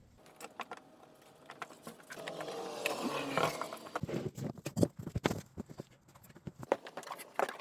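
Irregular knocks and clanks of a truck wheel and tire being worked on by hand, the loudest about five and seven seconds in. A rough, strained grunt or heavy breath from the effort comes a few seconds in.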